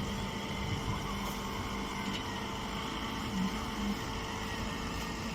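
Machinery running steadily, a constant hum with a few held tones over a hiss.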